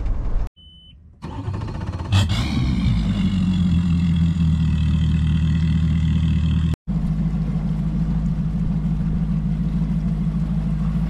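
Mercury Pro XS outboard motor on a bass boat idling at the dock with a steady hum and a high whine, then, after a sudden cut about two-thirds through, running as the boat moves out. Before that, a moment of vehicle-cab rumble and a short quiet gap.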